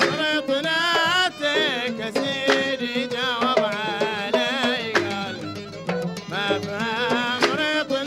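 Bahraini sawt music: a wavering violin melody over sharp, regular strokes of mirwas hand drums.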